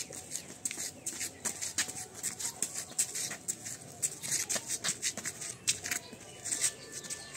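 Light, irregular footsteps scuffing on a gritty concrete path, a few short scrapes a second.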